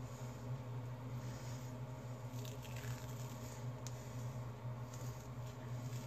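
Dried charcoal peel-off face mask being peeled off skin by hand, a few faint sticky crackles and scrapes, over a steady low hum.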